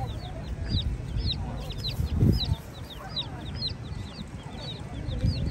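Feral chicks peeping constantly, several short high calls a second. The hen gives a few low clucks, the loudest a little over two seconds in.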